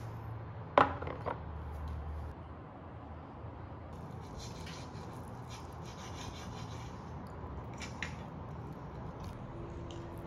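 A ceramic bowl set down on a table with a sharp clink and a smaller knock about a second in, then faint scraping and rubbing of wooden chopsticks against a plate, with a light tap near the end.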